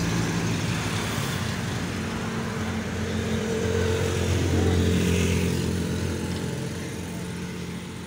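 A motor vehicle's engine running with a steady low hum, growing louder to a peak about four to five seconds in and then fading as it passes.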